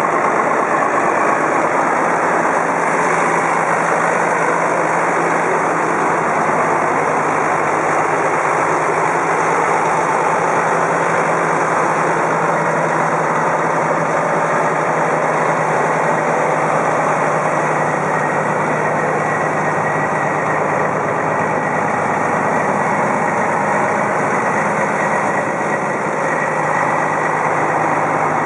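The diesel engine of a 1994 International 8200 tandem truck tractor idling steadily.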